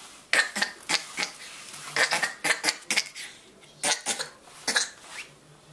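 A baby standing in a pack and play makes about a dozen short, sharp, breathy bursts, cough-like huffs or knocks, in quick uneven clusters.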